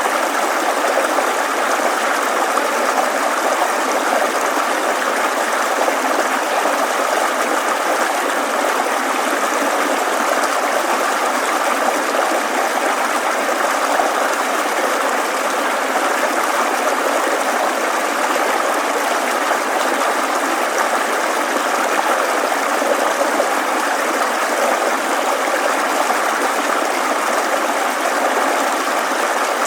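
Babbling mountain stream: steady rushing, trickling water that does not change.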